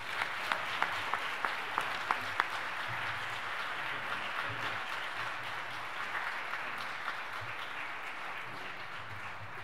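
Audience applauding steadily, with a few sharp, nearer single claps standing out in the first two or three seconds; the applause thins slightly toward the end.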